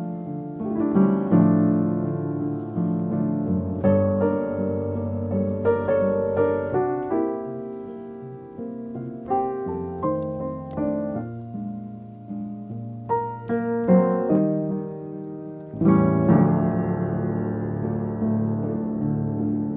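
Background piano music: chords and notes struck in a slow, changing sequence, with a fuller chord about sixteen seconds in.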